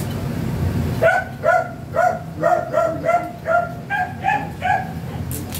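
Siberian husky giving a quick run of about ten short, high yelping whines, two or three a second, starting about a second in, while held still for a mating.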